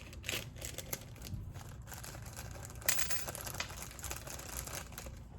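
Crinkling rustle and scattered small clicks from gaskets and small carburetor parts being handled, with one louder rustle about three seconds in.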